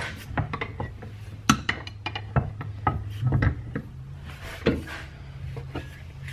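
Pieces of scrap steel clinking and clanking irregularly as they are handled and sorted, over a steady low hum.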